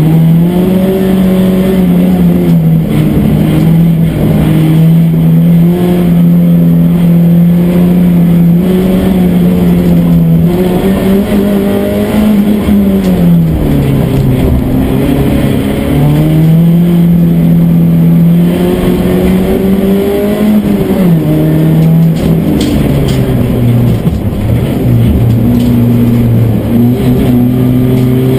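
Opel Astra F GSi 16V's 2.0-litre 16-valve four-cylinder engine under hard load, heard from inside the cabin during a slalom run. The engine note is held high, then falls and climbs again as the driver lifts and accelerates between the cones, with clear drops about halfway through and again a few seconds later.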